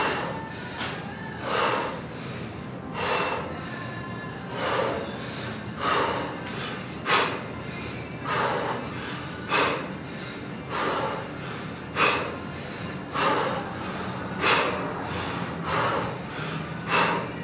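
A man breathing out sharply and rhythmically through the nose and mouth while snatching a kettlebell, a short hissing breath about every second and a quarter, keeping time with the reps.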